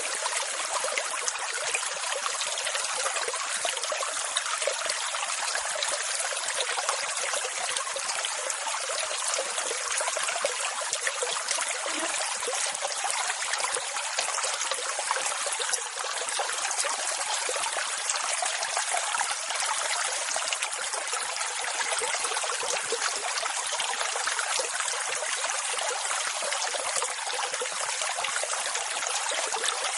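Continuous rushing water, an even hiss with no rise and fall of separate waves.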